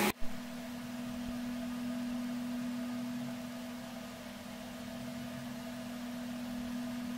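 A steady low hum at one even pitch, with a short sharp click just after the start.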